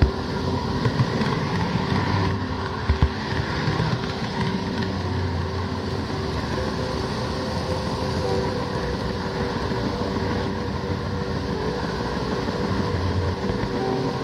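Model train running along the track, heard close up on board: a steady whir and rumble of the motor and wheels, with a few sharp clicks in the first three seconds as it runs over rail joints or points.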